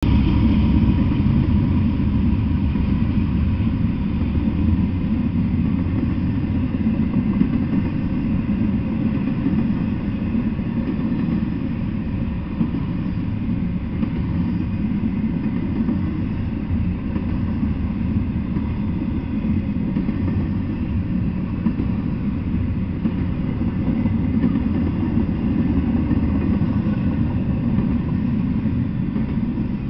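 Double-stack intermodal freight train rolling past, its steel wheels on the rails making a steady low rumble.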